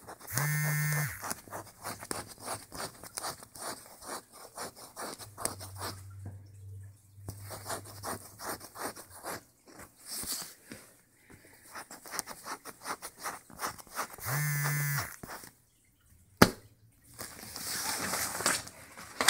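Lovebird's beak and feet on paper flyers: a run of small clicks, taps and paper scratching. Two short loud buzzes cut across it, one near the start and another about fourteen seconds later, and there is a single sharp click shortly after the second.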